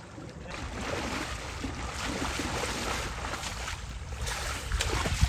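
Shallow water sloshing and splashing as a fine-mesh cloth net is dragged through it by two people wading, over a low rumble. A sharp splash or knock comes just before the end.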